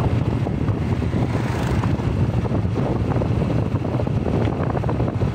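Motorcycle engine running while riding along, with wind buffeting the microphone.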